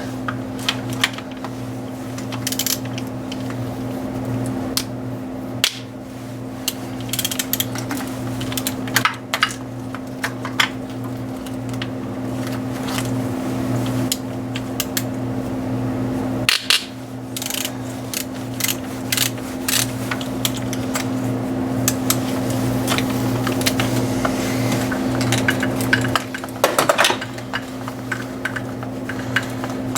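Hand tools on metal: scattered clicks, clinks and knocks of a socket wrench and metal parts as the 10 mm bolts of a thermostat housing are broken free and backed out, over a steady hum.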